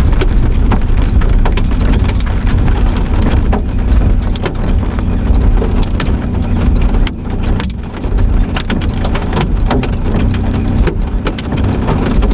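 Heavy rain coming down hard in a thunderstorm, a dense wash of noise over a steady low rumble, with many sharp individual drop hits scattered through it.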